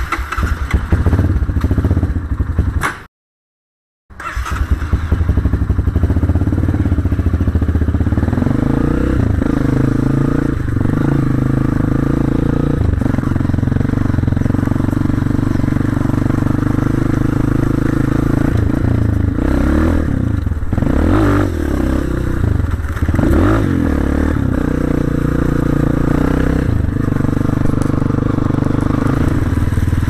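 Dirt bike engine running while the bike is ridden, steady for most of the time, with the revs rising and falling several times about two-thirds of the way through. Near the start the sound is more clattery and cuts out completely for about a second.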